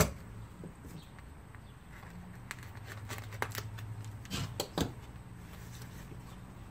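Tissue paper and thin foam packing wrap crinkling and rustling as it is unwrapped by hand, in scattered light crackles with two louder rustles a little past four seconds in. A single sharp tap comes right at the start.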